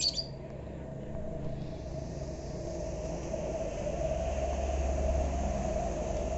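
Small single-cylinder Suzuki Shogun motorcycle engine in a homemade go-kart running at a steady idle, its low rumble swelling a little after a few seconds. A sharp click right at the start.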